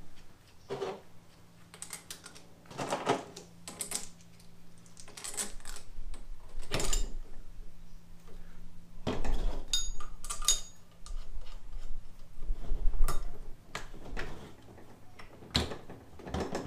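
Steel differential parts clinking and clicking as a ring gear is handled on a limited-slip differential and its bolts are worked in by hand, with irregular sharp metal knocks, a few ringing briefly, over a faint steady hum.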